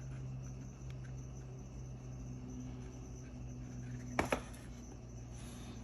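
Steady low electrical-sounding hum over faint room noise, with a brief sharp click, and a smaller one just after it, a little after four seconds in.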